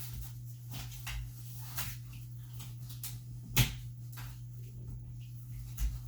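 Handling noises from assembling a playpin: scattered light clicks and knocks of its parts being fitted, with a sharper knock about three and a half seconds in and another near the end, over a steady low hum.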